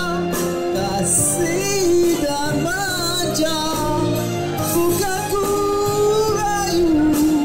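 A Malay pop song performed live: a held, wavering melody with singing over steady instrumental backing.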